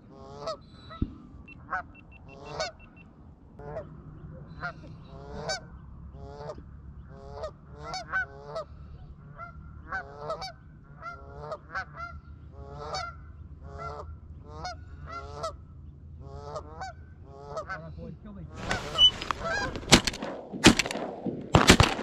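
Canada geese honking over and over, a honk every half second or so, over a low steady rumble. Near the end a rapid volley of shotgun fire breaks out, several shots close together and much louder than the honking.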